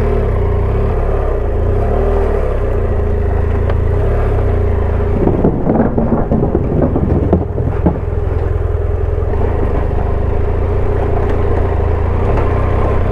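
Motorcycle engine running as the bike rides off over a rough track, its pitch rising and falling early on, with a stretch of knocks and rattling about halfway through.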